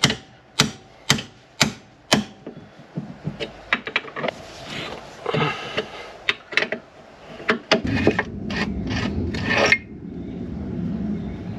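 Hand tools worked against a Ferrari 360's bare front hub carrier: a run of five sharp metallic taps about two a second, then scraping and rubbing with scattered clicks.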